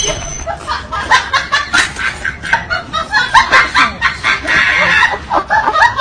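Rapid giggling laughter, a string of short high snickers several times a second.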